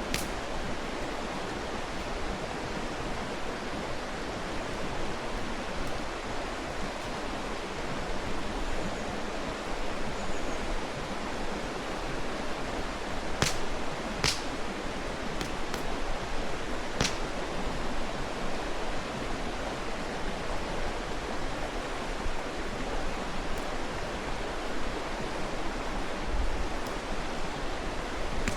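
Mountain stream rushing steadily, with a few sharp pops from a wood campfire near the middle.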